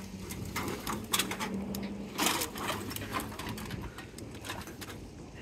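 Plastic garbage bags full of empty cans and plastic bottles rustling and clinking in a series of irregular short clicks as they are handled and loaded into a metal shopping cart. A steady low hum runs under the first half and stops a little over two seconds in.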